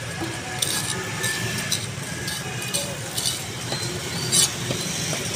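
Knife blade scraping the scales off a large carp on a wooden chopping block: a run of short rasping scrapes, about one every half second, over a steady low background hum.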